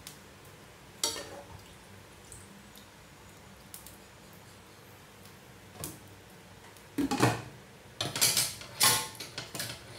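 Metal spoon clinking and scraping against a ceramic bowl: a single clink about a second in, another a few seconds later, then a busier run of clatter over the last three seconds.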